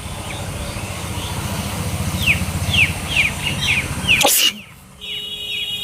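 A woman sneezes once, a single sharp loud burst about four seconds in, after a build-up of breathy noise that grows steadily louder. Small birds chirp in quick falling calls just before the sneeze.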